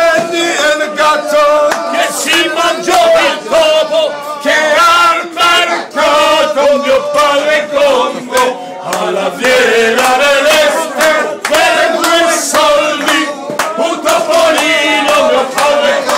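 A group of men singing loudly together in chant-like unison, with hand claps throughout.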